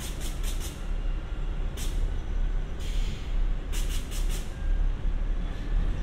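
Diesel railcar KiHa 52 standing at a platform with its engine idling in a steady low rumble, while a series of short hisses of air go off over the first four seconds or so, some in quick clusters.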